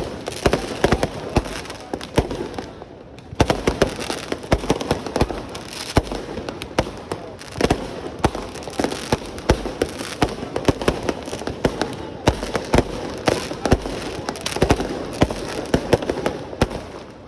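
Fireworks going off in a dense, continuous barrage of sharp bangs and crackles, several a second, with a brief lull about two to three seconds in.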